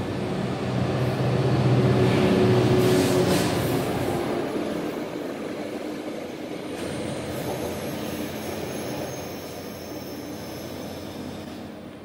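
Commuter train passing close by: the locomotive's engine hum is loudest about two to three seconds in, then the cars roll past on the rails with a thin, high wheel squeal in the second half.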